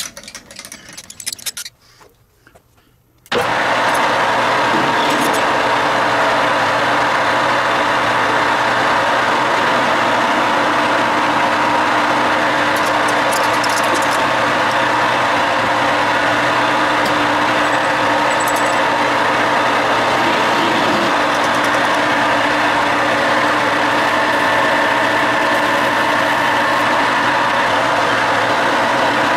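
Metal lathe running at a steady speed: an even machine hum with several constant whining tones over a hiss, coming in abruptly about three seconds in after a short silence. Light clicks and rattles come before it in the first couple of seconds.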